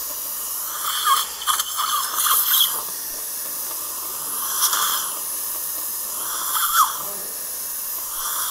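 Dental surgical suction hissing steadily in the mouth, with irregular slurping gurgles as it draws up saliva and blood while an impacted lower wisdom tooth section is elevated out.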